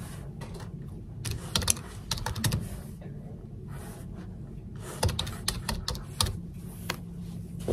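Typing on a computer keyboard: quick runs of key clicks in two main bursts, with a pause of about two seconds between them and a few scattered keystrokes around them.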